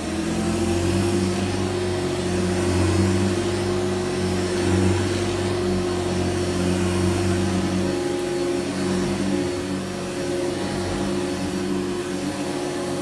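Vintage 1985 Hoover U7008 upright vacuum cleaner running steadily: a low motor hum with airflow hiss.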